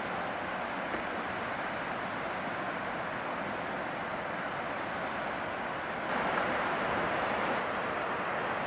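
Steady outdoor rushing noise that swells a little about six seconds in, with faint high chirps over it.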